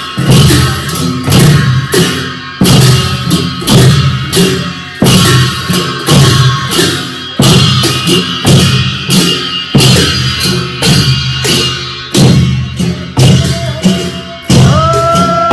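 Gurung Chhyadu dance accompaniment: percussion beating a steady, repeating rhythm. Near the end a held pitched note comes in over the beat.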